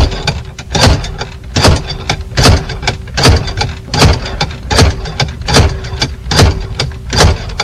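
Slide hammer being rapped repeatedly to yank a Ford ignition lock cylinder out of the steering column: a series of about ten sharp knocks, evenly spaced at a little more than one a second.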